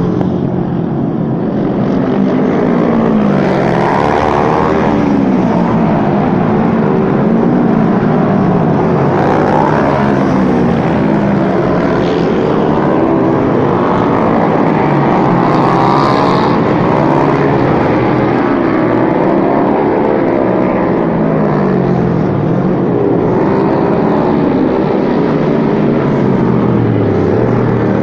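Racing motorcycle engines, several at once, revving hard as they accelerate and change gear; their pitch climbs and drops again and again.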